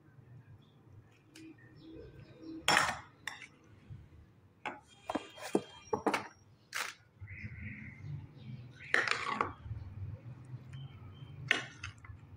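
A metal spoon stirring diced fruit in a glass bowl, clinking against the glass in irregular strikes, a few of which ring briefly.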